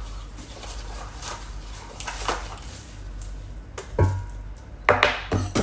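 Pressure cooker and its parts being handled, giving scattered knocks and clicks, the loudest about four seconds in and again near the end, over a steady low hum.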